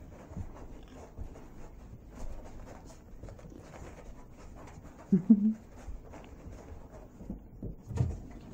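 Small Yorkshire terrier rolling and scuffling on a rug, a faint rustling. About five seconds in there is a brief low voice-like sound in two quick notes, and a soft thump near the end.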